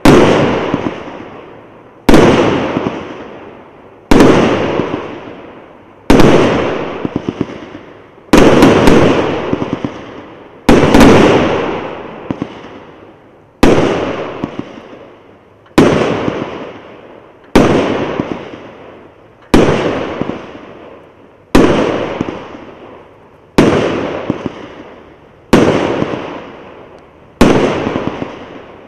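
A 1.2-inch, 100-shot 'Zvezdopad' firework cake firing shell after shell, roughly one every two seconds. Each shot is a sharp bang that fades over a second or two, with scattered crackles in the tail.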